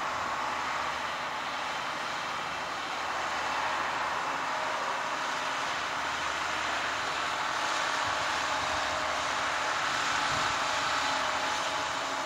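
Adelaide 3000-class diesel railcars running past: a steady rushing of wheels and running gear, growing a little louder past the middle.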